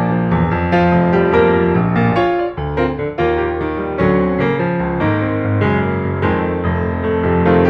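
Background piano music: notes and chords played at a steady pace.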